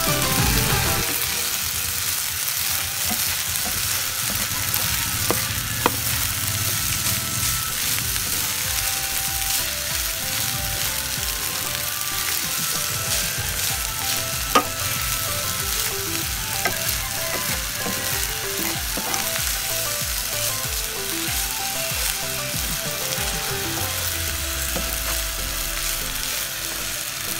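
Fried rice with egg sizzling steadily in a hot pan as a spatula stirs and tosses it, with a couple of sharp clicks of the spatula against the pan.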